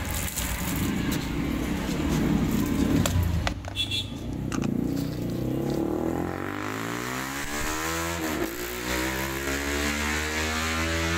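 An engine drone rising slowly in pitch through the second half, over a noisier first half with a few sharp clicks and knocks.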